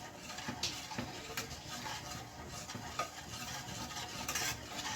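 A utensil stirring a thick béchamel sauce in a pan, with soft scraping and a few sharp clicks against the pan as the cheese is mixed in.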